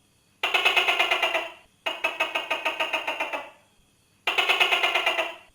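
Tokay gecko giving its rattling call: three bursts of rapid clicking pulses, about ten a second, each burst lasting a little over a second.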